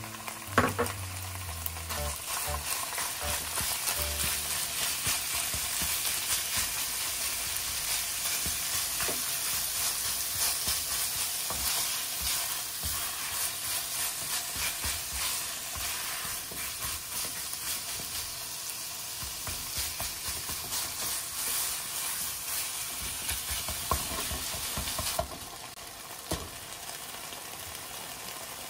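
Minced chicken breast frying in oil with garlic and chili in a nonstick frying pan, sizzling steadily while a spatula stirs and breaks it up, with many small scrapes and taps against the pan. A sharp knock about half a second in; the sizzling drops quieter about 25 seconds in.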